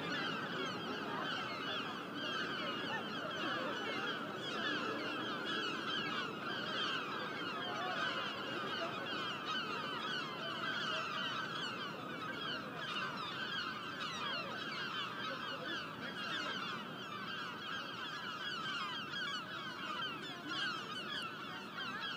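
A flock of birds calling, a steady din of many overlapping short chirps.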